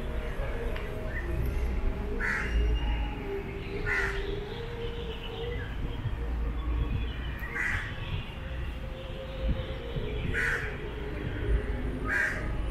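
A crow cawing: about five single calls, a couple of seconds apart, over a steady low rumble.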